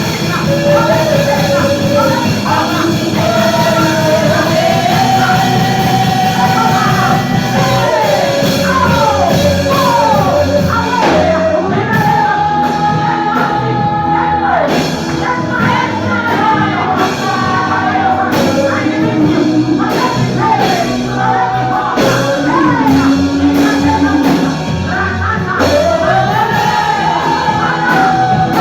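Church worship music: singing over band accompaniment, with a regular beat coming in about halfway through.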